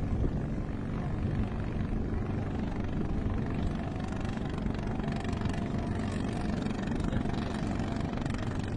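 Klotok boat's inboard engine running steadily under way, a constant low drone with no change in speed.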